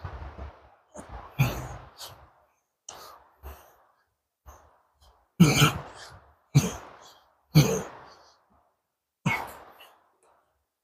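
A man's sharp, forceful exhalations during bodyweight dips, one with each push up: about five loud ones, with fainter breaths between, coming closer together in the second half.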